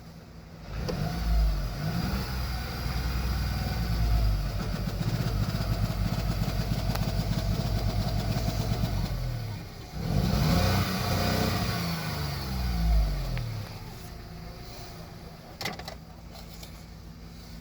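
VW Polo 1.2 engine revved twice: it climbs about a second in and holds high for several seconds, dips, climbs again, then drops back to a quieter idle near the end. The engine has a cylinder 1 misfire reported by a code reader.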